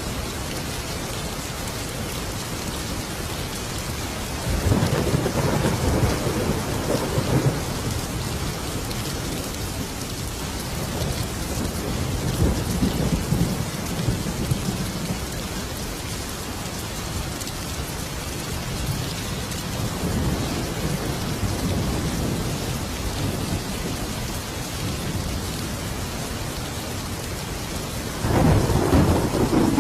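Thunderstorm: steady rain with rolling thunder, the rumbles swelling and fading several times, and a sudden louder clap of thunder near the end.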